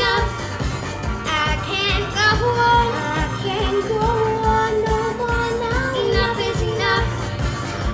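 Two girls singing a disco duet live into microphones, holding long notes with vibrato, over a backing track with a steady kick-drum beat.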